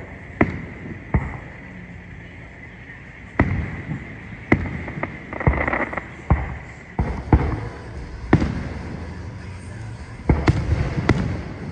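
An aerial fireworks display: about ten sharp booms of shells bursting at irregular gaps of half a second to two seconds, with a stretch of crackling about halfway through.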